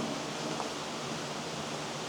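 Steady rush of running water, with a faint tap about half a second in.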